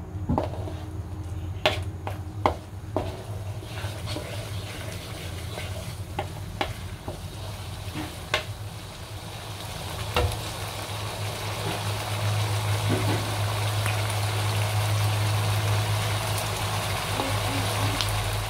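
Wooden spatula scraping and tapping against a wok as it stirs a thin oyster-sauce gravy with onions and dried chillies. The sauce sizzles and bubbles, louder in the second half once the stirring stops.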